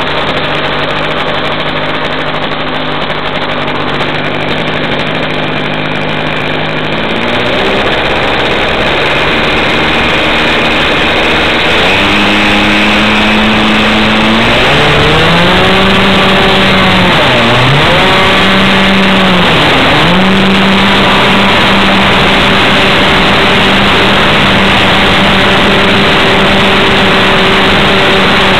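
Great Planes Cherokee R/C model airplane's engine, heard up close from a camera on board. It idles steadily, is throttled up in steps for the takeoff run across the grass, dips in pitch twice, then runs steadily at high throttle as the plane climbs.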